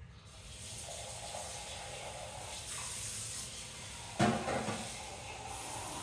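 Steam hissing steadily from the Gaggia Magenta Plus coffee machine's steam wand, with a brief low thump about four seconds in.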